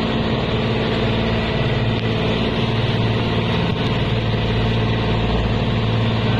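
Outrigger boat's engine running steadily under way, a constant low drone with the wash of choppy sea water and wind over it.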